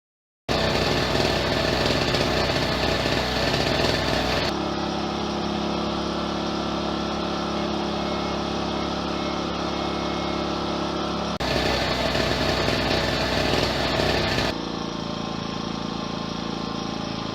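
Two small portable generators heard running in turn: the louder two-stroke Pulsar PG1202S and the much quieter Amico AIG2000 four-stroke inverter generator, which runs with a steady, even hum. The louder one starts half a second in, gives way to the quieter one about four seconds in, comes back at about eleven seconds, and switches to the quieter one again near fourteen and a half seconds.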